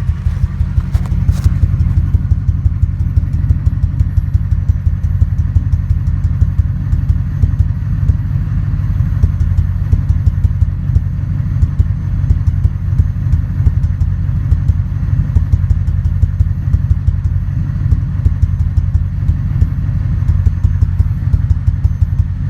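Ford 5.4-litre two-valve V8 idling roughly, the pulses uneven, with a run of light ticks over it. It is the rough idle with no trouble codes of a lingering misfire; the owner wonders whether the mass airflow sensor is bad.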